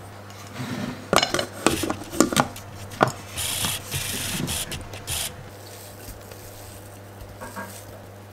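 A spatula knocking and scraping in a Thermomix's stainless steel mixing bowl as thick chocolate dough is scraped out. There are several sharp knocks in the first three seconds and a rasping scrape around four seconds in, followed by quieter handling.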